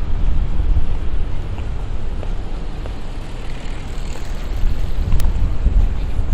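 Steady low rumble of city street ambience, with traffic noise and the deep buffeting of wind or handling on a moving microphone, and one brief sharp tick about five seconds in.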